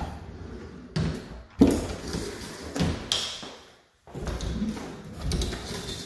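Bifold closet doors being pulled open: the hinged panels fold and slide along their track with several knocks, the loudest about one and a half seconds in, and a longer sliding stretch near the end.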